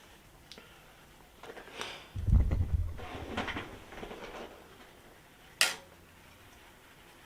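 Handling noises while fishing line is spooled onto a baitcasting reel: rustling, a low thump about two seconds in, and a single sharp click near the end.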